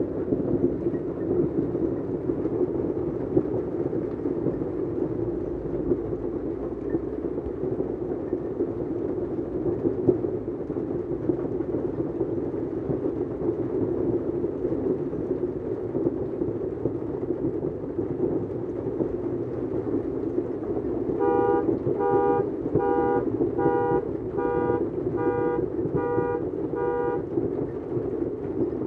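Steady noise of hail and heavy rain falling on cars and pavement. About twenty seconds in, a car horn sounds in an even beat, about nine honks over five or six seconds, the pattern of a car alarm going off.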